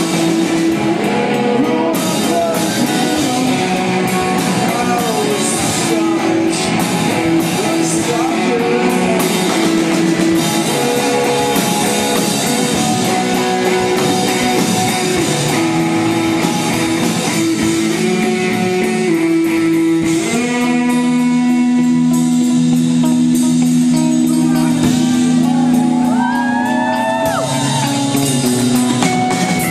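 Live rock band playing with electric guitar, drums and a singer. About twenty seconds in, the music settles into long held notes, and a bending line rises and falls near the end.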